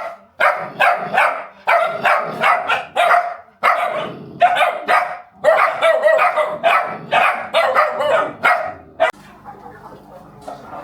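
Dog barking rapidly and repeatedly, about three barks a second, stopping about nine seconds in.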